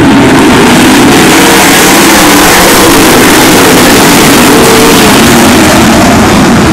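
A pack of winged 360 sprint cars racing past at full throttle, their V8 engines merging into one loud, unbroken roar, with one engine note rising about five seconds in.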